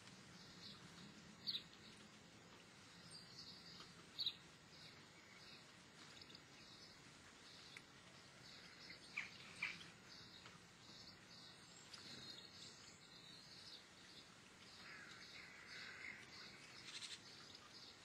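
Faint small songbirds chirping and twittering: a steady scatter of short, high chirps, a few sharper, louder calls about four and nine seconds in, and a run of twittering near the end.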